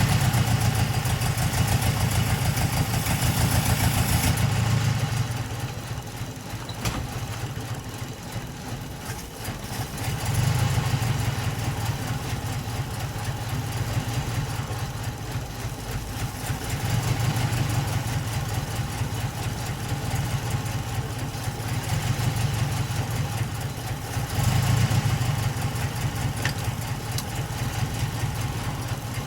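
Datsun 510 Bluebird's Solex-carburetted L16 four-cylinder engine running at idle, its rumble growing louder and softer every several seconds.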